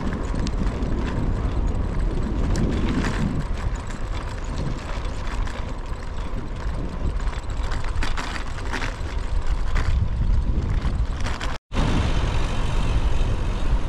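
Wind rushing and buffeting over the microphone of a bicycle ridden into a headwind, mixed with tyre and road noise. The sound cuts out completely for an instant about two seconds before the end.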